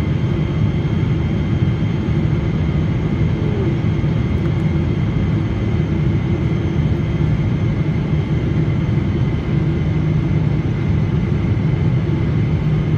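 Steady cabin noise of an airliner in flight: engine and airflow noise, heaviest in the low end, with faint high steady whines running through it.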